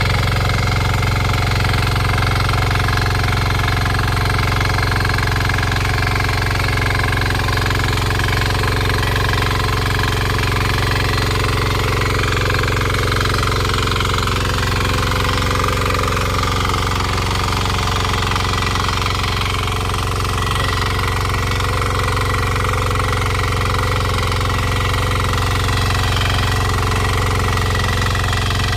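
A KisanKraft 6 HP power weeder's small single-cylinder engine running steadily with a hard, knocking beat.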